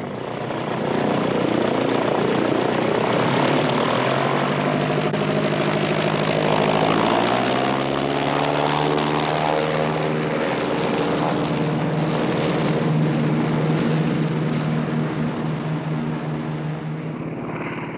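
De Havilland Canada Otter floatplane's radial engine and propeller running at takeoff power on a run across the water. The engine note rises in pitch about halfway through, holds steady, then fades near the end as the plane draws away.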